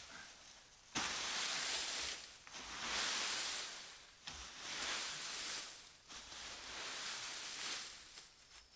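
Dry leaves rustling in several bursts of a second or so each, the first starting abruptly about a second in.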